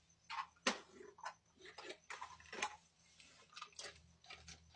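Irregular light clicks and taps, about ten over a few seconds, the sharpest just under a second in.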